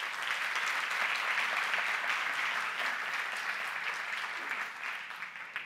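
Audience applauding, a steady crackle of many hands clapping that dies away near the end.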